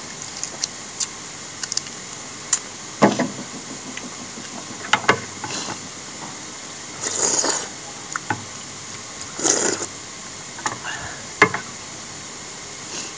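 A person eating thick bánh canh noodle soup with chopsticks: scattered short clicks and mouth smacks while chewing, and two longer slurps of noodles, about seven and nine and a half seconds in.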